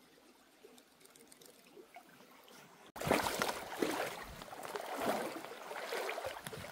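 Faint trickling of a small stream. About three seconds in it jumps suddenly to much louder splashing, rushing water that surges irregularly about once a second.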